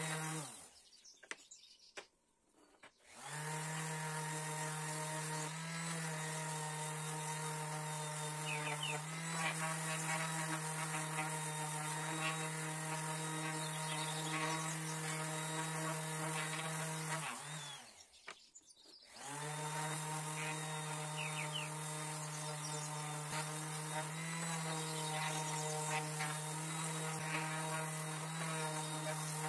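Electric random orbital sander running steadily as it sands small wooden boards, a constant whirring hum. It winds down just after the start and starts up again about three seconds in. It winds down again a little past halfway and starts back up a couple of seconds later.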